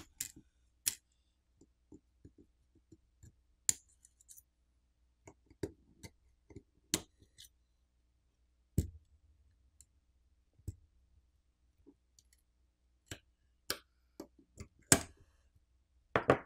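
Scattered sharp clicks and light taps from a plastic pry tool and fingertips working on a smartphone's opened frame and internal parts, a dozen or so at irregular intervals, the loudest near the end.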